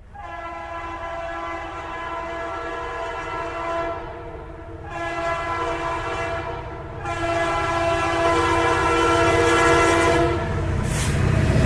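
Train horn sounding three long blasts, the first about four seconds, a short one after it and a longer third, over the low rumble of a goods train that grows louder as it comes closer.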